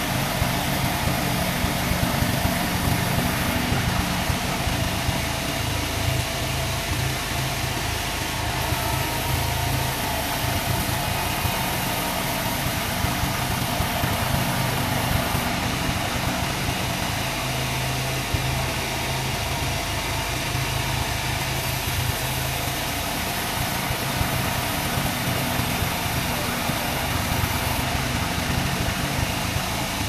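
Large band sawmill driven by a lorry engine, running steadily as a teak plank is fed past the blade. It gives a constant engine drone with no breaks or changes.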